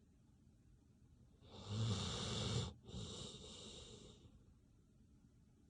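A sleeping dog snoring: one loud snore with a low buzz about a second and a half in, lasting about a second, followed straight after by a softer, breathier breath before it goes quiet again.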